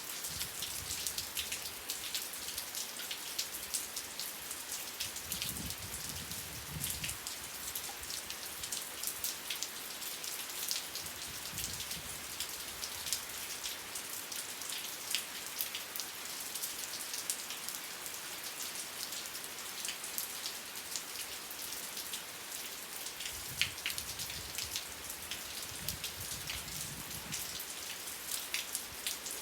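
Steady rain falling, with many individual drops heard distinctly over an even wash. A soft low rumble swells briefly twice, about five seconds in and again near the end.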